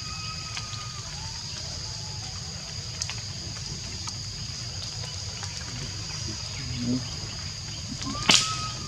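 Forest ambience: a steady high-pitched insect drone over a low rumble, with a short whistled call near the end and a sharp click about eight seconds in.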